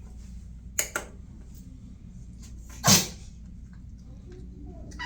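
A cat sneezing: two small sharp puffs about a second in, then one loud sneeze about three seconds in. The sneezing is a symptom that the vet put down to a pollen allergy.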